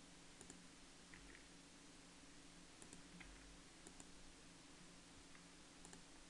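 Near silence in a quiet room with a faint steady hum, broken by a handful of faint computer mouse and keyboard clicks, some in quick pairs.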